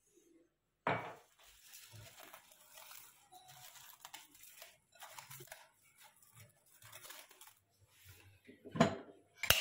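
Plastic cling film being pulled and stretched over a bowl, crinkling and rustling, starting with a sharp crackle about a second in. A couple of louder knocks and a sharp click come near the end.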